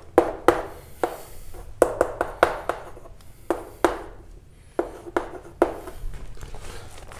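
Writing and drawing on a board: irregular sharp taps and short strokes, about a dozen, as a chemical structure is written out.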